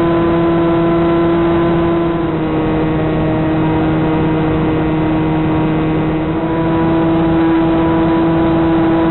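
Electric RC plane's brushless motor and propeller running at a steady cruise throttle, a constant whine with its pitch held level and the level easing slightly twice, recorded by the plane's onboard camera.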